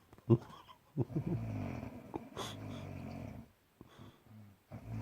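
A person snoring: a short sharp snort near the start, then a long rough snore on the breath, a pause, and the next snore starting near the end.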